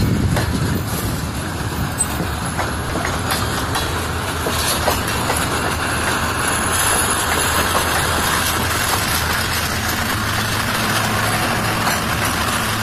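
Freight cars of a slow shortline train rolling past at a street crossing, a steady rumble of wheels on rail with scattered clicks and knocks. A low steady hum grows stronger in the later seconds as the diesel switcher locomotive draws near.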